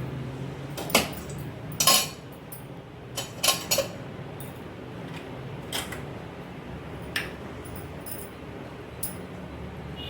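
Metal kitchen utensils and vessels clinking: a handful of sharp separate clinks, the loudest in the first four seconds, over a low steady hum.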